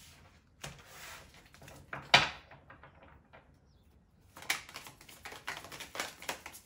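A tarot deck being shuffled by hand: the soft slide of cards, one sharp slap of cards about two seconds in, then a quick run of card clicks from about four and a half seconds.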